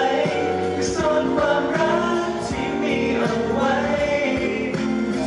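Thai pop song performed live: singing into a microphone over musical accompaniment, with several voices together.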